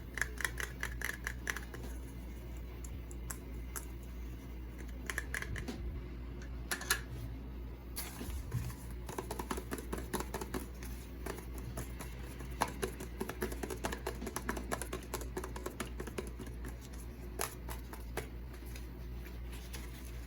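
Small items and packaging being handled by hand: a busy run of light clicks, taps and crinkly scratching, over a steady low hum.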